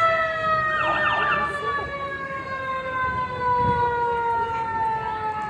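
A siren sounding one long, slowly falling tone, winding steadily down in pitch.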